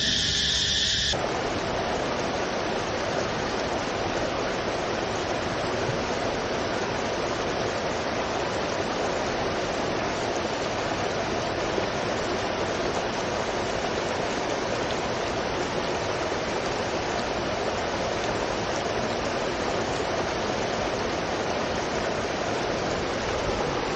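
A steady, even rushing noise, like running water. A high, steady layered sound cuts off about a second in.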